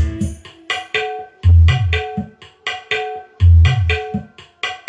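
Music played loud through a sound system's speakers fed by a dbx 224XL four-way crossover, as a sound check. Tabla-like hand-drum strokes sound over deep bass hits that come about every two seconds.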